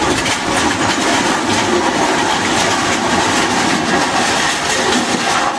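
Loud, steady mechanical rattling and rumbling with no break, like heavy machinery or rolling metal running.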